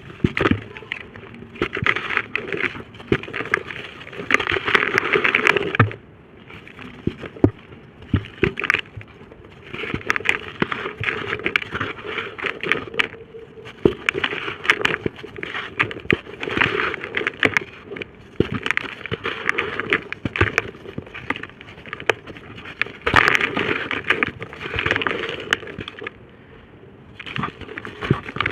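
Dry red dirt and brick shapes being crushed and crumbled, a gritty crunching full of sharp crackles, coming in bursts with two short pauses.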